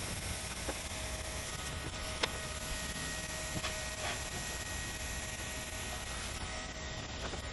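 Hand-held hot-air gun blowing steadily, a rushing hiss with a faint motor whine, as it heats the edge of a self-adhered SBS roofing membrane. A few light clicks and taps, the clearest about two seconds in.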